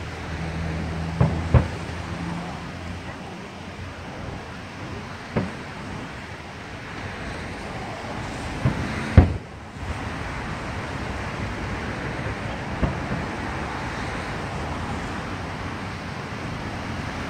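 Firework shells bursting with sharp booms, about half a dozen spread out, the loudest about nine seconds in, over a steady hum of road traffic.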